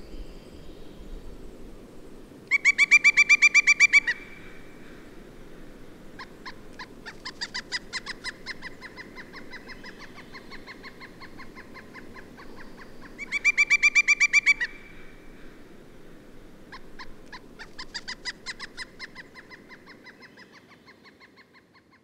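Pileated woodpecker calling: a loud, rapid series of ringing notes about a second and a half long, heard twice. Each series is followed by a softer, slower, longer run of similar notes. The calls fade out near the end.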